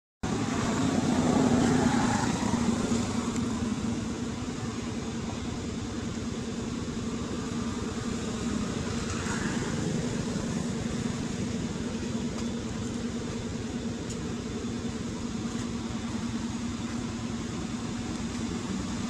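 Steady low mechanical hum, like a motor running, a little louder over the first few seconds.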